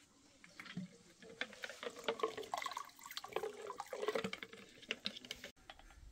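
Water splashing and gurgling in irregular spurts, stopping abruptly near the end.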